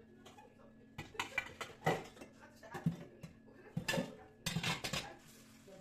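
Stainless steel pots and lids clattering and clinking against each other and the metal sink as they are handled, a run of sharp knocks with brief ringing starting about a second in.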